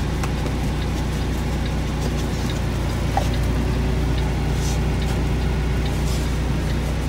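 Truck engine idling with a steady low hum, heard from inside the cab.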